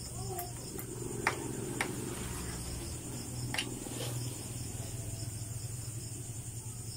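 Four sharp metallic clicks as hand tools and parts knock against an opened boat transmission's gear case, over a steady background hum.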